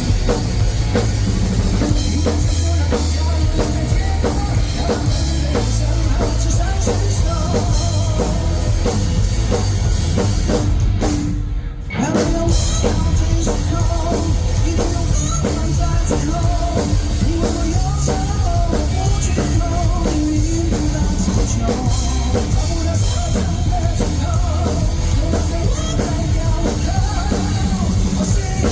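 Live rock band playing loud, with drum kit, bass and electric guitars driving a steady beat. The band breaks off briefly about twelve seconds in, then comes straight back in.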